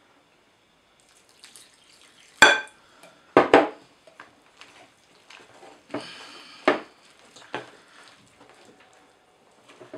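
A utensil stirring a rough flour-and-water bread dough in a glass mixing bowl, knocking against the glass in several sharp clinks, the loudest about two and a half and three and a half seconds in, with quieter scraping between.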